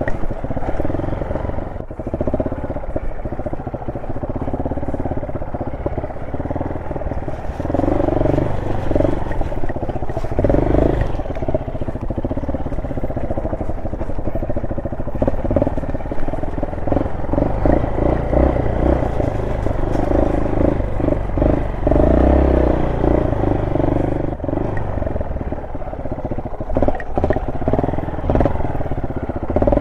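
Honda SL230's air-cooled single-cylinder four-stroke engine running at low speed off-road, its note rising and falling repeatedly as the throttle is opened and closed, with scattered knocks and rattles from the bike over rough ground.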